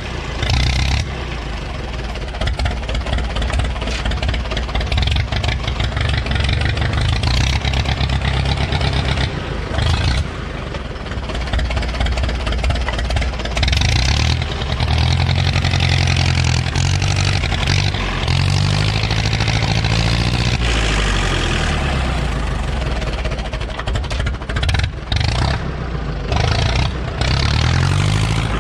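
Diesel engine of an Ostrówek K-162 loader running under load as the machine is driven and steered. Its speed keeps rising and falling in the second half.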